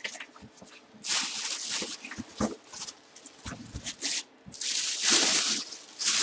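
Clear plastic bag and cardboard box being handled as a full-size football helmet is unpacked: rustling and crinkling in bursts, loudest about a second in and again near the end, with small knocks and scrapes between.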